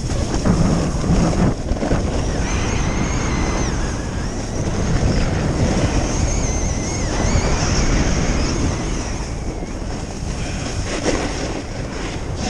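Wind rushing over the microphone of a camera on a skier descending a groomed run, mixed with the hiss and scrape of edges on packed, tracked snow. A thin wavering high tone runs through the middle of the rush.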